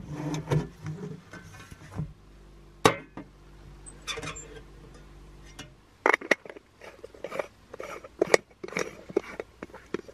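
A metal latch clicks on a storage box, then a stovetop moka pot is handled and screwed together. Its parts give sharp clicks, clinks and scrapes, most densely in the last few seconds.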